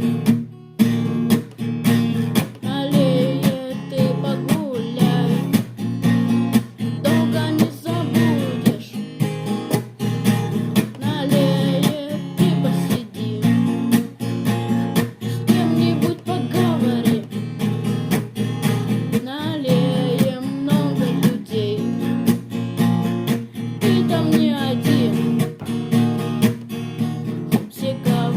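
Music: acoustic guitar strummed in a steady, even rhythm.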